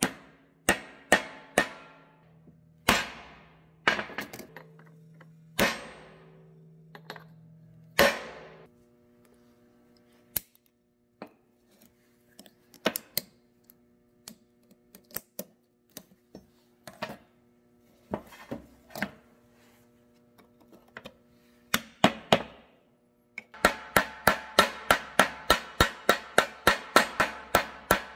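Hammer blows on metal while a driveshaft universal joint is fitted, each strike ringing briefly. Heavy, spaced blows at first, then lighter taps, then a fast run of about four blows a second near the end.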